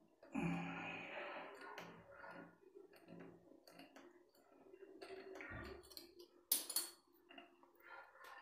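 Light metallic clicks and taps of a chrome wall faucet and its brass valve stem being handled and turned by hand, with one louder, brief sharp noise about six and a half seconds in.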